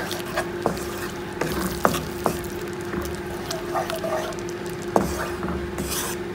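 Wooden spatula stirring a wet kidney bean curry in a nonstick wok. The sauce sizzles on the heat, and the spatula knocks sharply against the pan a few times.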